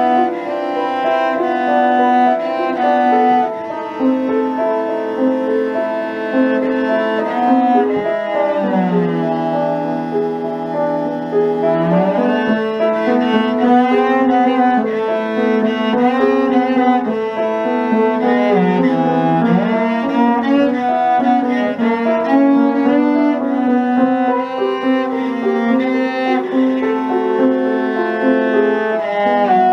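Cello and piano playing classical chamber music, the cello holding long notes and sliding between pitches over the piano accompaniment.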